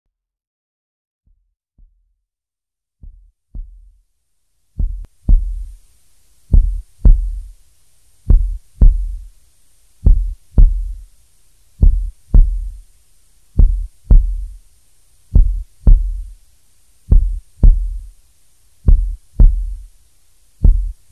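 Slow heartbeat sound effect: paired low thumps (lub-dub) repeating about every second and three-quarters, fading in from silence and loud from about five seconds in. A faint steady hiss sits behind it.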